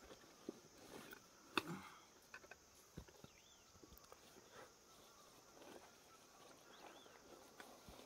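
Faint rustling and small knocks of camping gear being handled and taken out of a backpack, with one sharper click about one and a half seconds in.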